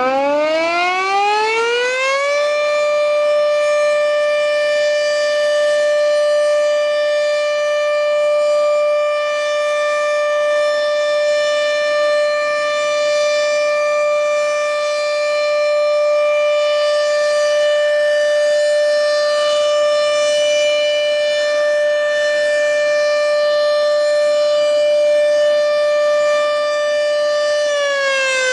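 Sentry 40V1T electromechanical outdoor warning siren winding up to full speed over the first couple of seconds, then holding one steady, loud tone, and starting to wind down, falling in pitch, near the end.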